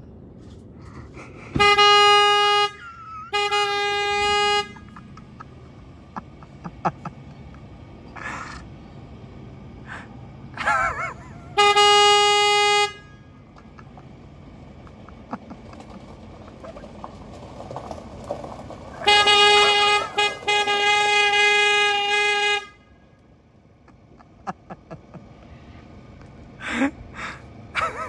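A horn plugged into a ute's trailer socket honking in single-tone blasts: three of about a second each in the first half, then a longer one of about three and a half seconds.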